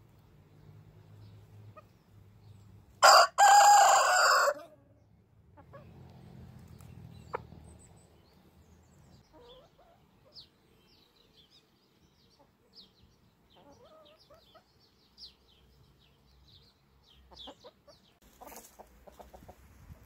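Rooster crowing once, loud, about three seconds in: a short first note, then a longer drawn-out call. Hens clucking softly afterwards.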